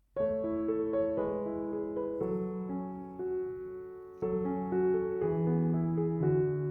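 Background piano music playing a melody over sustained chords, coming in right after a moment of silence, with a new phrase starting about four seconds in.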